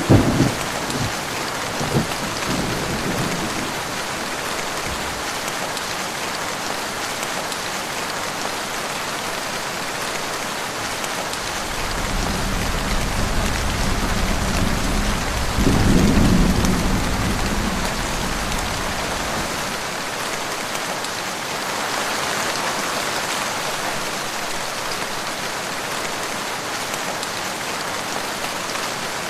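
Heavy rain falling steadily, with a sharp crack of thunder at the start and crackling for a few seconds after. About twelve seconds in, a low rumble of thunder rolls in, swells, and fades away.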